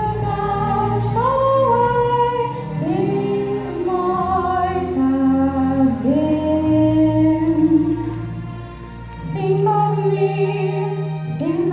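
A young woman singing a slow solo into a microphone, holding long notes and sliding up into them. Low sustained notes sound underneath and shift about nine seconds in.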